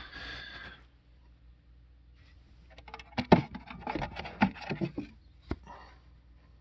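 Handling noise: a short rustle, then after a quiet pause a quick flurry of clicks and knocks lasting about two and a half seconds, with one sharp knock standing out.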